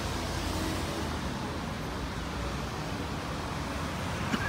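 Street traffic: cars driving past on a city street, a steady mix of engine hum and tyre noise. A single short click sounds near the end.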